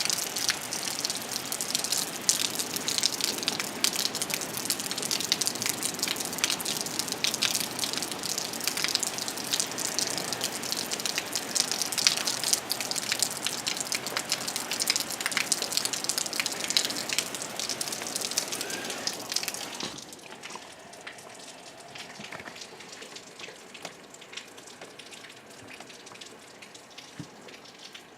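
Heavy rain falling, a dense patter of drops striking surfaces. About twenty seconds in it drops suddenly to a quieter, lighter patter.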